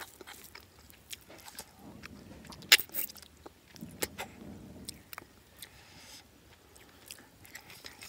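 Close-up eating sounds: chewing, mouth smacks and sharp clicks as cooked snails are sucked out of their shells and eaten, the loudest click a little under three seconds in.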